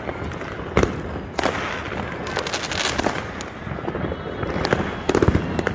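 New Year fireworks going off overhead: sharp bangs at uneven intervals, with a loud one about a second in and a cluster of bangs and crackles near the end, over a steady background of distant fireworks.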